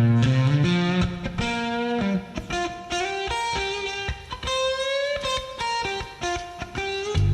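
Background music: an electric guitar playing a melodic blues-style line, with a bent note about five seconds in and a sustained low bass note coming in near the end.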